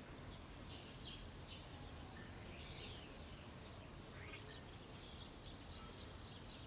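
Faint birds chirping, with short quick sweeping calls, over steady low outdoor background noise.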